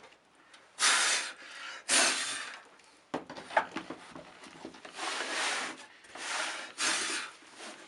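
Short wooden blanks for beehive frames being handled, with about five separate scraping rushes of wood rubbing, each under a second.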